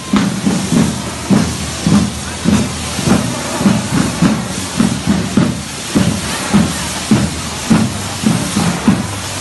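Firework fountains on a correfoc fire-dragon figure spraying sparks, a continuous loud hiss with crackle, over a steady low thumping beat about twice a second.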